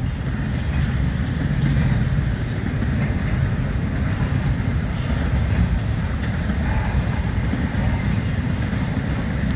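Double-stack intermodal freight cars rolling past, a steady low rumble of wheels on rail. A faint high wheel squeal rises over it around two to three seconds in.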